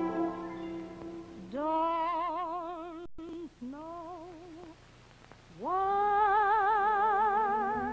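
A woman singing three long held notes in a classical, operatic style, each sliding up into pitch and carried on a wide vibrato, with a short pause before the last. An orchestra chord dies away under the start.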